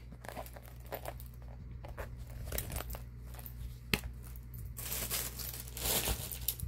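Handling of a small crossbody phone bag: rustling and crinkling as it is turned over and its flap lifted, with one sharp click about four seconds in and a louder stretch of rustling a little later.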